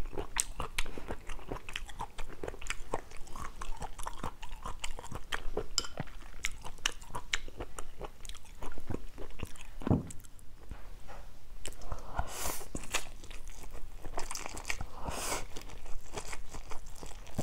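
Close-miked eating of stir-fried instant noodles with seafood: steady wet chewing with many small mouth clicks, then two slurps of noodles in the second half.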